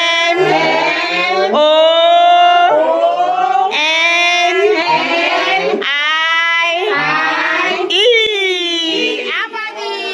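Children singing together in long held notes, roughly one a second, breaking into choppier voices near the end after a short knock.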